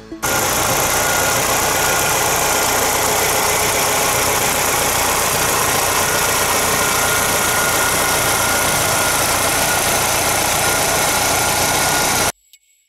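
Chevrolet Tornado pickup's engine idling steadily, heard up close under the open hood; the sound cuts off suddenly near the end.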